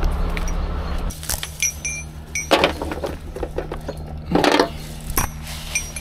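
Small steel chain clinking and rattling in irregular bursts as it is carried and handled. A truck engine's low hum is strong for about the first second, then drops away.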